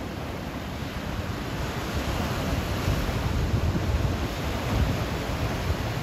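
Ocean surf breaking and washing over rocks, a steady rush of noise that swells about two seconds in.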